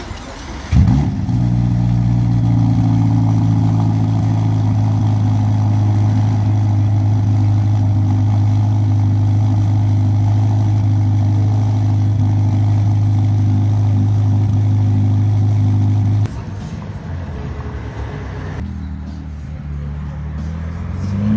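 Ferrari Roma's twin-turbo V8 starting with a loud flare, then settling into a steady idle. About sixteen seconds in the idle drops suddenly to a quieter note. Near the end the engine revs with a rising pitch as the car pulls away.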